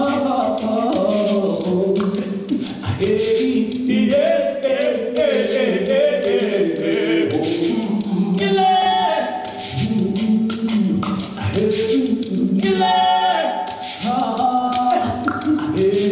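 A group of voices singing in harmony without instruments, the sung lines holding and shifting pitch, over a steady run of crisp percussive clicks.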